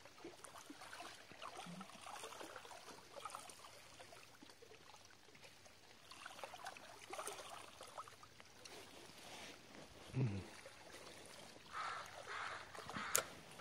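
Faint water lapping and trickling against shoreline rocks. About ten seconds in a brief low sound drops in pitch, and near the end there is a single sharp click.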